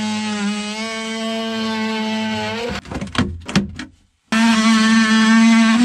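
Oscillating multi-tool cutting the inside lip off a plastic battery tray: a steady, high, single-pitched buzz. It stops about two and a half seconds in, a few knocks follow, and the tool starts up again near the end.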